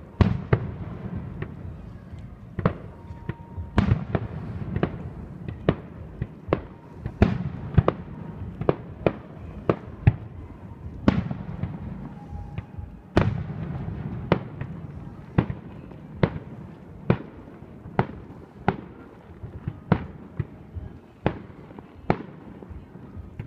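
Aerial fireworks display: a steady, irregular run of sharp shell bursts, roughly one or two a second, each with a rolling echo, over a continuous low rumble of launches and distant bursts.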